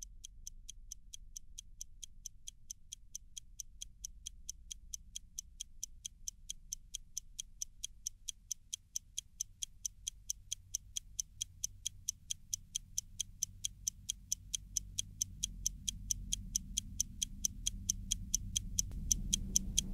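Steady, fast clock-like ticking, about four ticks a second, with a low rumble swelling underneath over the last few seconds.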